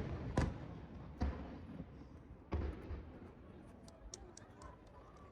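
Fireworks bursting at a distance: a few sharp booms in the first three seconds, then a brief crackle of small pops about four seconds in.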